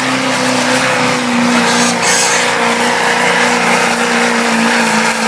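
Diesel pickup truck engine running hard under load at steady high revs, pulling a weight sled, with a noisy rush over the engine drone.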